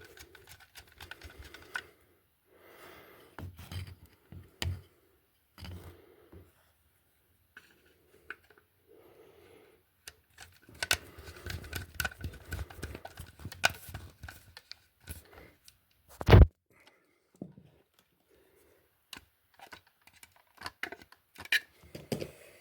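Handling noise of wiring an electrical socket: scattered clicks, scrapes and rustles as the wires are worked into the socket's terminals, busiest a little past the middle, with one sharp knock about two-thirds of the way through.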